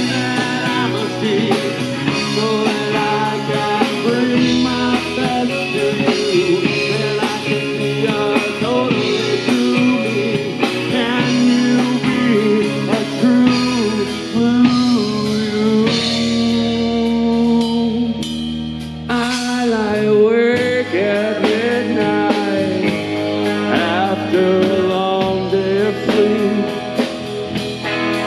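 Live three-piece rock band playing: electric guitar, bass guitar and drum kit, with sung vocals.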